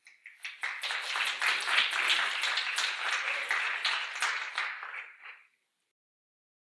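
Audience applauding; the clapping fades away near the end.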